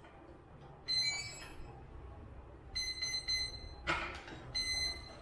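Start-up beeps of a brushless motor's electronic speed controller on a 70 mm electric ducted fan, sounded through the motor as the battery is connected and the controller arms: a short run of tones about a second in, a longer beep around the middle, a click just before the fourth second, and one more beep near the end.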